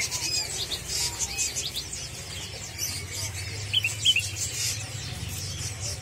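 Many caged small songbirds chirping together in a dense chorus of short high calls, with two louder chirps about four seconds in, over a steady low hum.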